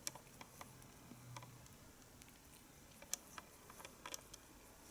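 A cat licking its fur while grooming: faint, irregular small wet clicks of the tongue, a few sharper ones about three and four seconds in.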